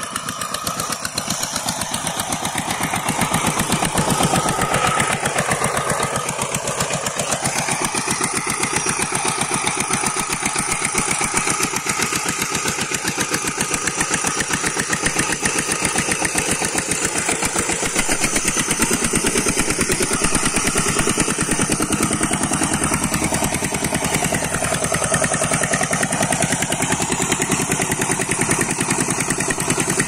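Power tiller's single-cylinder diesel engine running under load with rapid, even firing beats. It grows louder about three to four seconds in, with its pitch rising and falling briefly, then runs steadily.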